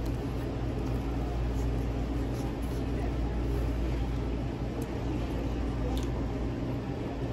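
Steady low room hum in a restaurant, with a few faint clicks of eating pizza on top.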